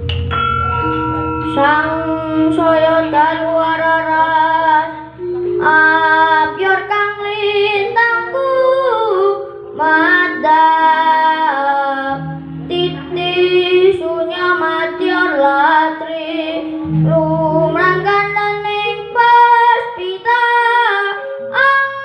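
A child singing long, held Javanese vocal phrases over soft gamelan accompaniment: sustained metallophone tones under the voice, and deep gong tones that sound near the start and twice more later on.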